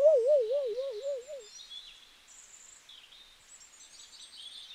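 A warbling tone that wavers quickly up and down, about six times a second, for the first second and a half, a comic sound effect. Then faint bird chirps.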